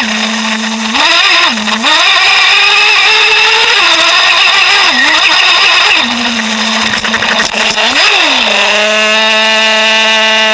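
Traxxas Jato nitro RC truck engine running, revving up and down with the throttle several times. After about eight and a half seconds it settles to a steady idle.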